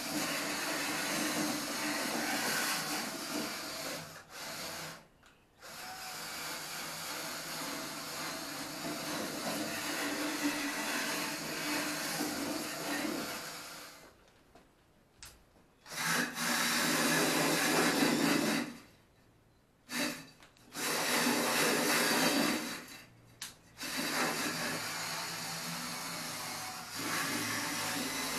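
Handheld power tool running against the sheet-metal front panel of a Lada Niva, grinding rust and paint off the bodywork. It runs in several bursts with short pauses between, the longest about eight seconds.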